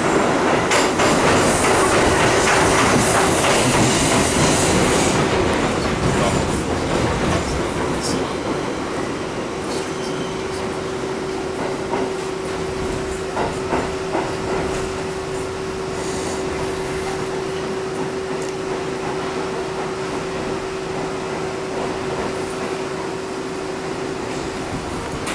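R62A subway car running on the rails, heard from inside the car: loud rumble and rail noise in the tunnel for the first several seconds, then quieter as it runs alongside the station platform. A steady hum sets in about nine seconds in, with a few clicks over rail joints.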